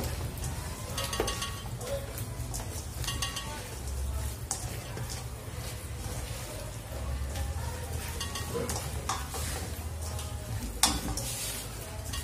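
Hand mixing raw pork chop pieces with flour and a little water in a stainless steel bowl: wet squishing of the coated meat, with irregular scrapes and taps of hand and meat against the metal over a steady low hum. A sharper knock on the bowl comes near the end.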